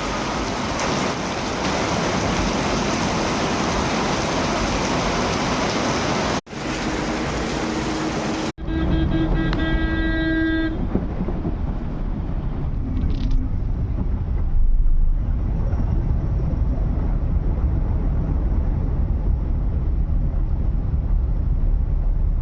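Heavy rain hissing steadily, with two brief cutouts. After about eight seconds it gives way to a low traffic rumble, with a vehicle horn honking for about two seconds.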